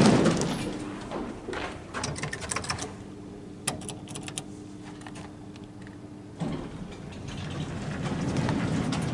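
1970s Otis lift, modernised by Schindler, running: the door and car mechanism click and clatter, then there is a steady low hum. About two-thirds of the way through, a rushing mechanical sound rises and fades.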